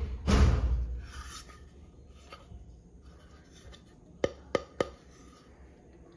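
Handling noises from unboxing a cast iron fry pan: a loud scrape or rub lasting under a second near the start, then three quick sharp taps about a third of a second apart, a little past four seconds in.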